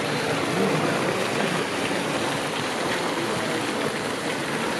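Steady hubbub of many people chatting at a busy café's outdoor tables, with no single voice standing out.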